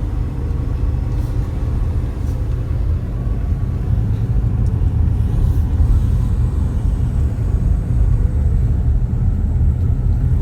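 A car driving at steady speed, its road and engine noise a continuous low rumble.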